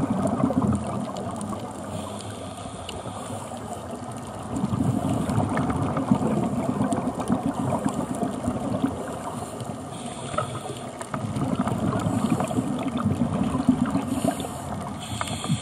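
Scuba divers breathing through regulators underwater: three long bubbling rumbles of exhaled air, with a fainter hiss of the regulator on the inhale between them.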